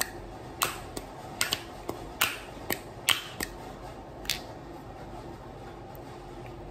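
Plastic serum pump bottle being handled, opened and pumped: about ten sharp clicks and taps over the first four seconds or so.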